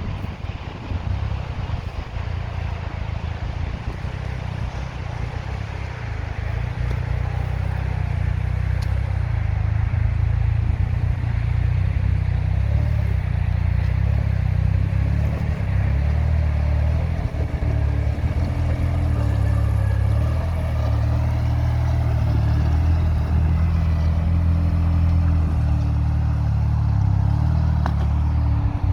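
Off-road trial vehicle's engine working under load. It gets louder about seven seconds in and then holds, with small rises and falls in revs.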